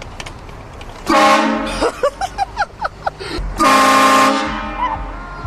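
Two loud blasts of a vehicle-mounted ship-style air horn, each just under a second long and about two and a half seconds apart. Between them comes a quick run of short high-pitched cries.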